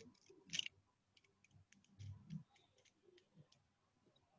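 Faint clicks and soft knocks of plastic toy robot parts being handled and fitted together, a few scattered taps against near silence.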